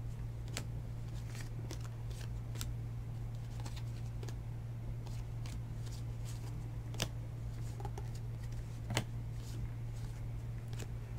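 Trading cards being flipped through one at a time in the hand, sliding against each other with small irregular clicks and snaps, a couple of them louder in the second half, over a steady low hum.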